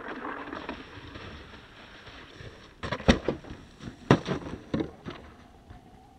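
A snowboard scraping as it slides down a stone ledge, then running footsteps crunching in snow, with heavy thumps about three, four and five seconds in. A faint rising tone comes in near the end.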